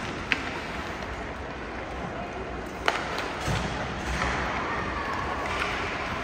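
Ice hockey rink ambience with sharp clacks of sticks and puck: a light one about a third of a second in and a louder one near the three-second mark.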